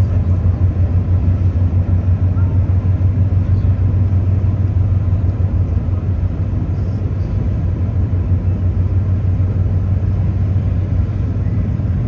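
The engines of the Lobo Marinho, a passenger and car ferry, running as it arrives and manoeuvres in harbour: a steady, loud, low rumble.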